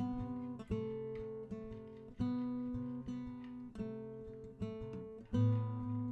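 Background music: acoustic guitar picked and strummed in a steady rhythm.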